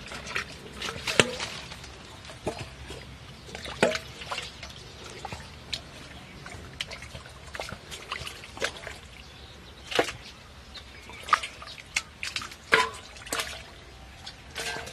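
Muddy water being bailed out of a shallow ditch with a small steel bowl: irregular scoops, splashes and drips, some with a brief metallic ring.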